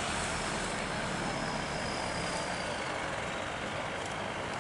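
Jet engines of a landing Boeing 777 airliner, heard as a steady rush of noise as it touches down and rolls along the runway, with a faint high whine falling in pitch over the first few seconds.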